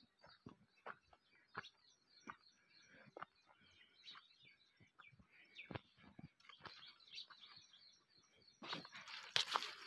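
Footsteps on dry soil and leaves, about one every two-thirds of a second, under faint chirping of small birds. Near the end a louder rustling noise comes in.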